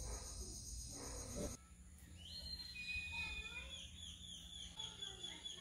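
Faint high-pitched animal calls, chirping and warbling, with a low rumble for about the first second and a half that cuts off suddenly.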